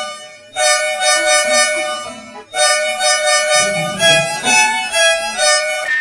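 Multi-tone bus horn sound effect sounding loud, reedy, chord-like blasts of about two seconds each, then switching to a quick run of changing notes like a short tune in the last two seconds.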